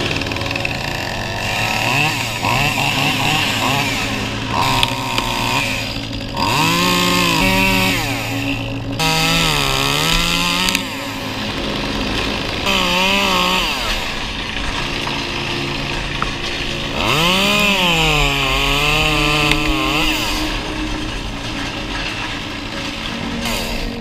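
Echo CS2511TES top-handle chainsaw, a small two-stroke, idling and revved up four or five times. Under throttle its pitch climbs, then sags and recovers as the chain cuts through sycamore limb wood.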